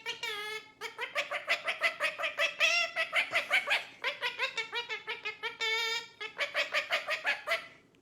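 A bird calling in rapid repeated pitched notes, about seven or eight a second, some gliding in pitch. The calls come in several runs with short breaks between them.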